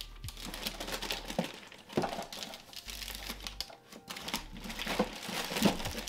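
White plastic packing bag crinkling and rustling as it is pulled out of a cardboard shipping box, with a few light knocks of hands against the cardboard.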